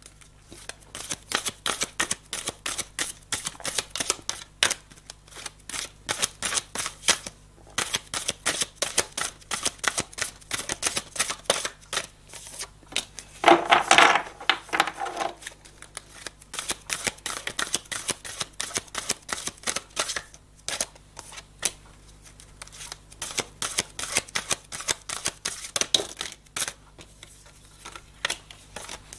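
Oracle cards being shuffled by hand: a long run of quick, irregular soft clicks and flicks, with a louder brief burst about halfway through.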